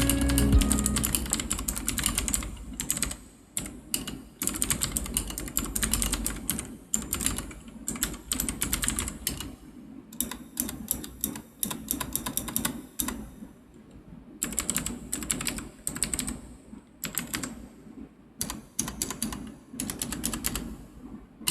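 Typing on a Royal Kludge RK100 mechanical keyboard with its stock clicky blue switches: sharp clicks in fast runs, broken by short pauses. A mild reverb has been added to the recording.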